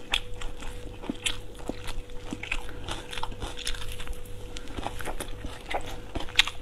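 Close-miked eating sounds of a person chewing soft braised pork belly: irregular wet smacks and clicks of mouth and lips, several every second, over a faint steady hum.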